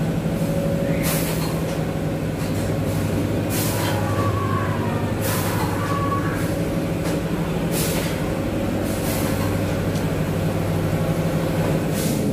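Steady low machine hum in a haunted-house attraction, broken every couple of seconds by short sharp hisses of air from the pneumatic effects of its animated props.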